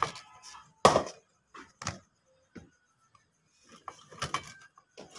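Cricket ball and bat: several sharp knocks and clacks, the loudest about a second in, more near two seconds and again after four seconds.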